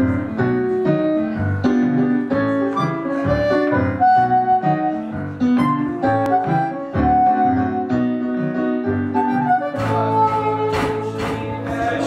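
Instrumental intro by a live band: a keyboard piano strikes rhythmic chords while a harmonica plays the melody over them. Near the end, drums and cymbals come in and the sound fills out.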